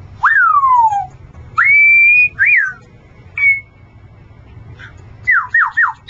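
Congo African grey parrot whistling: a long whistle that leaps up and slides down, a rising whistle held high, and a short up-and-down note, then about a second before the end a quick run of falling whistles, about four a second.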